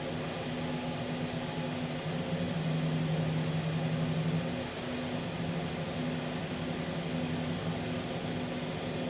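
Steady mechanical hum of shop machinery, with a low tone that cuts in and out about once a second and a deeper hum that grows louder for a couple of seconds partway through.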